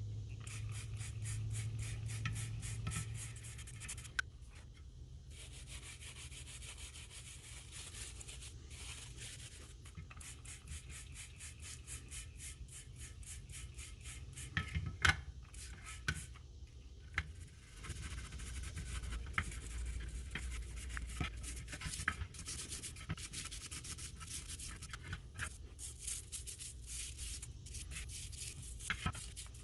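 Rapid back-and-forth strokes of an abrasive rubbed by hand over an old, grimy screwdriver being cleaned up, stopping briefly a couple of times. A few sharp knocks come about halfway through.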